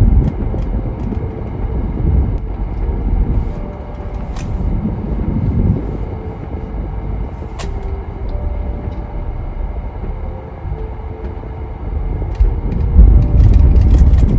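Car driving slowly, heard from inside the cabin: a steady low engine and road rumble that swells near the start and again near the end, with a couple of faint clicks.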